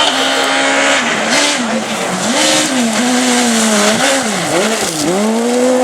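Rally car engine running hard at high revs. Its pitch dips sharply and climbs back several times as the throttle is lifted and reapplied, then holds steady near the end.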